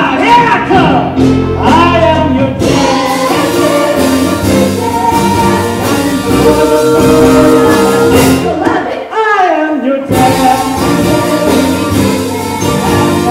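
Live stage-musical song: a male lead singing with a group of backing voices over band accompaniment. Near the end a voice slides downward, then the sound cuts out for an instant.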